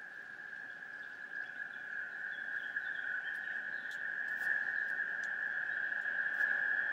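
Recorded outdoor field recording played back: a steady high-pitched drone that grows gradually louder, with faint scattered clicks.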